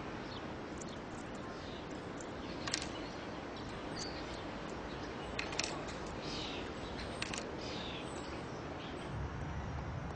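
Steady outdoor background noise with small birds chirping now and then and a few sharp clicks. A low rumble comes in near the end.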